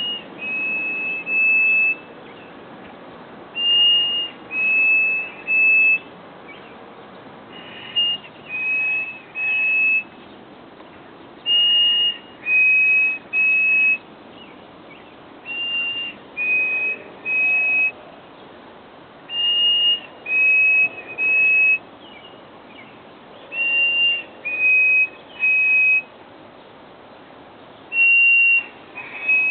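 A songbird's clear whistled song: each phrase is one higher note followed by two slightly lower notes, repeated about every four seconds.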